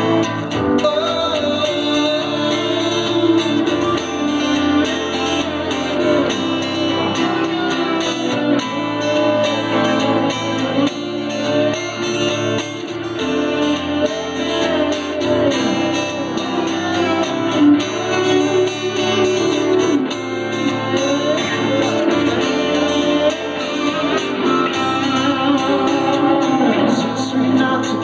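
A live band playing a slow pop song, with guitar prominent and some singing over it.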